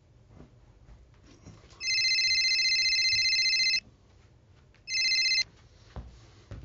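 Telephone ringing with an electronic trilling ring: one full ring, then a second ring cut short when the call is answered, followed by a click near the end.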